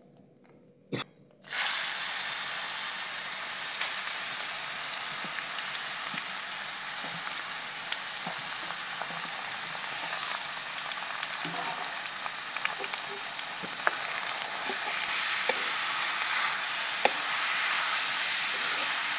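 Grated bottle gourd dropped into hot ghee in a kadhai, bursting into a loud, steady sizzle about a second and a half in that carries on as it is stirred. A steel ladle clicks and scrapes against the pan now and then.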